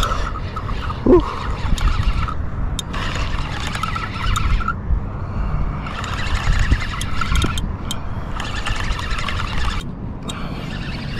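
Penn spinning reel being cranked, its gears whirring in spells of one and a half to two seconds with short pauses between, over a steady low rumble of wind on the microphone. A brief falling squeak comes about a second in.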